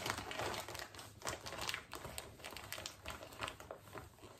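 Plastic mailer bag crinkling and rustling in irregular small crackles as hands pick and pull at it to get it open.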